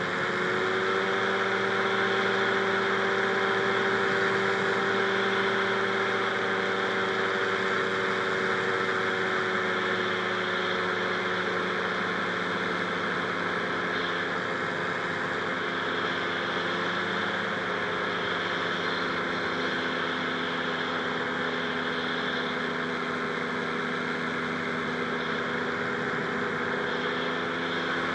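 Rotax 582 two-stroke twin of a Buckeye powered parachute running steadily with its propeller turning. The engine note rises slightly about half a second in and then holds steady.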